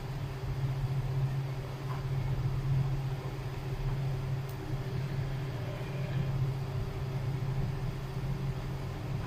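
A steady low hum with a faint hiss over it, from a pancake cooking in a nonstick wok over a lit gas burner.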